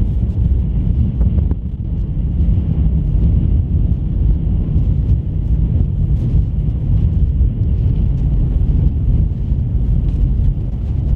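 Wind buffeting the camera microphone: a loud, steady low rumble, with a few faint clicks scattered through it.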